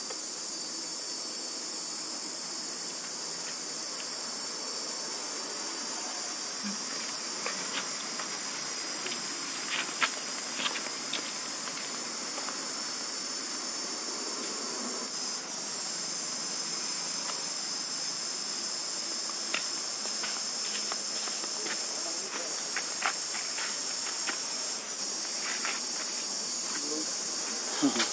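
A steady, high-pitched chorus of insects shrilling continuously, with a few short clicks and taps scattered through it, the sharpest about a third of the way in and at the very end.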